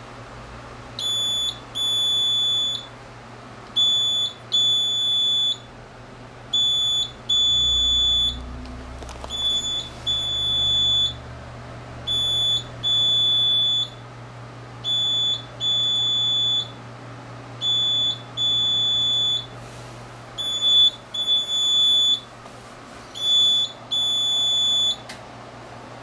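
AnaJet Sprint garment printer's alarm beeping in repeated pairs, a short high beep followed by a longer one, about every two and a half seconds, signalling an error. A steady low hum runs underneath.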